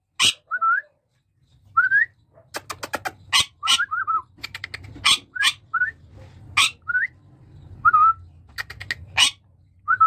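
Rose-ringed parakeet calling: a string of short rising whistles mixed with sharp, shrill chirps and squawks, coming every half second or so.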